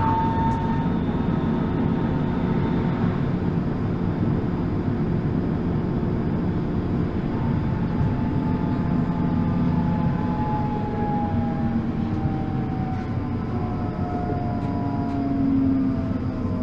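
Electric tram running along its track: a steady rumble of wheels on rails under a faint whine from the electric drive. In the second half the whine glides down in pitch as the tram slows.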